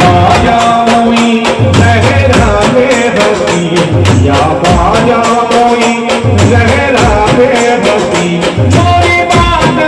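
Indian brass band playing a melody on horns over pulsing bass notes and a steady drum beat. The music cuts off abruptly at the end.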